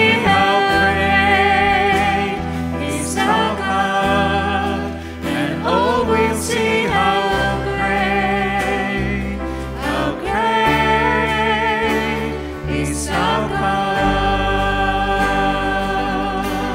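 Live worship band playing a slow worship song: women's voices singing long held notes with vibrato over keyboard and acoustic guitar.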